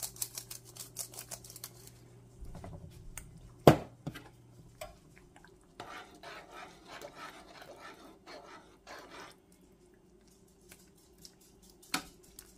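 Homemade chicken spice shaken from its container over a pan of simmering dumplings: quick rattling shakes, about seven a second, for the first couple of seconds. Then a single sharp knock just before four seconds in, scratchy rustling at the pan for a few seconds, and another sharp click near the end.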